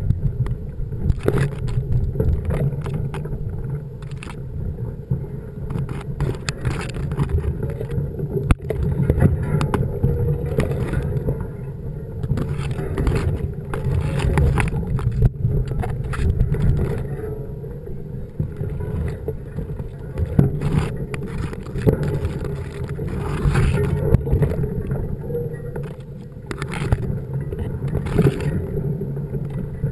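Mountain bike riding over rough ground: a steady low rumble with frequent rattles and knocks.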